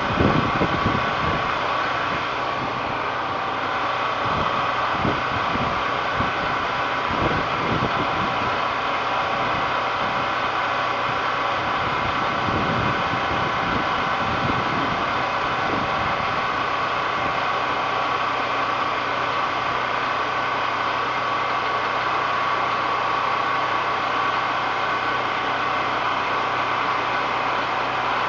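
Portable generator engine running steadily, with irregular crackling bursts in the first half, during a spell of welding.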